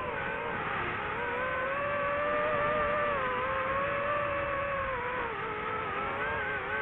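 DJI FPV drone's electric motors and propellers whining in flight. The pitch dips about a second in and again near the end as the throttle changes.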